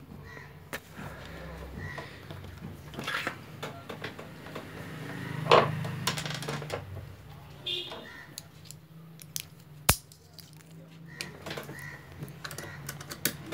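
Scattered light metallic clicks and taps from handling a Juki DDL-5550 industrial sewing machine during threading, with a sharp click about ten seconds in, over a low steady hum.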